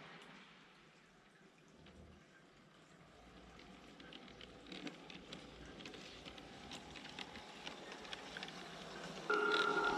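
G-scale model train with an electric locomotive rolling along the track toward the listener. Its wheels click over the rail joints, getting louder as it nears. Near the end a loud steady tone starts suddenly.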